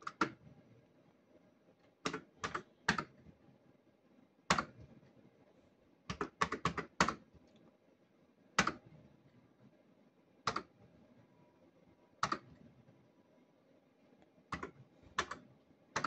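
Sharp plastic clicks and clunks from a Cops 'n' Robbers Safe Cracker fruit machine being played: its start and hold buttons pressed and its reels spinning and stopping. Single clicks alternate with quick runs of three to five.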